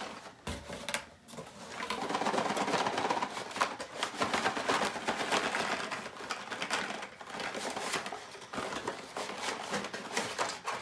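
Cardboard and plastic blister packaging being handled: a long white cardboard box scraping open and carded toy cars rustling and clicking against each other. The rustling is densest from about two seconds in to about eight seconds, then thins to scattered clicks.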